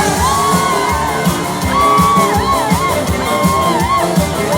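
Live band playing an instrumental stretch of an upbeat song: a steady drum beat under a high melody line that holds notes and wavers with wide vibrato, with shouts and whoops from the crowd.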